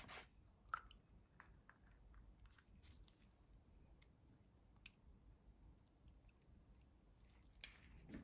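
Faint scattered clicks and light taps of glass and eggshell as raw eggs are cracked and tipped from a small glass bowl into a larger glass bowl, with a sharper tap just under a second in.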